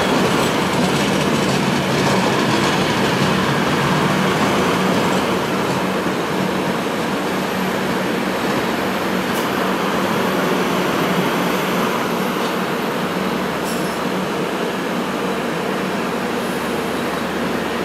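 A passenger train rolling past close by on the adjacent track: a steady rumble and rattle of coach wheels on the rails, easing off a little in the second half as the last coaches go by.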